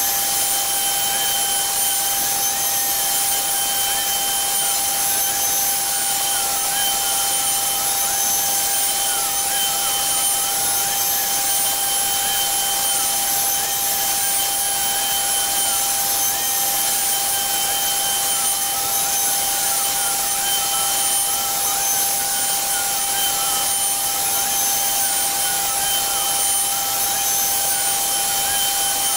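CNC Shark router's spindle running at a steady high-pitched whine as its bit carves a relief into a wooden door panel. A fainter tone wavers up and down beneath the whine.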